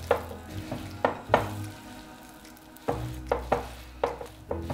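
Wooden spoon stirring thick oat cookie dough with chocolate chips and coconut flakes in a mixing bowl: wet scraping and squelching, with irregular knocks of the spoon against the bowl.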